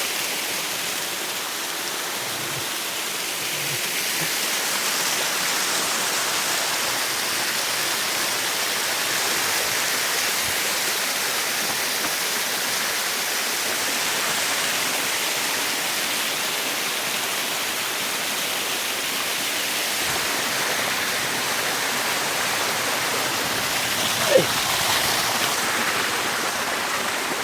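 Steady rush of flowing water from a jungle stream or small waterfall. A brief sharp sound cuts in near the end.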